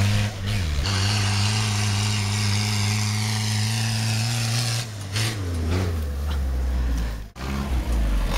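Small tractor engine running under load on a dirt track, holding a steady note, with brief breaks about a second in, about five seconds in and near the end.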